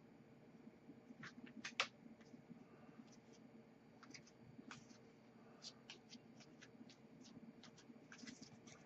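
Near silence with faint clicks and light rustling of trading cards being handled and flipped through by hand, the loudest a quick cluster of clicks about two seconds in.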